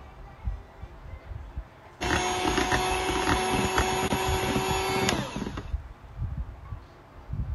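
Handheld electric mixer beating batter in a metal bowl: the motor starts abruptly about two seconds in, runs with a steady whine for about three seconds, then cuts off. Low, irregular handling noises follow.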